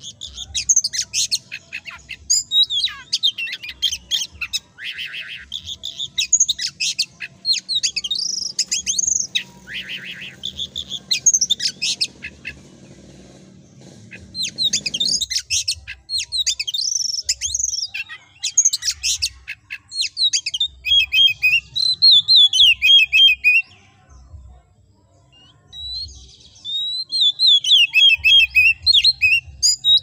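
Oriental magpie-robin (kacer) in full song: rapid, varied chirps, whistled sweeps and trills in long bursts, with brief pauses around halfway and again shortly before the end. A faint low hum underneath cuts off about halfway.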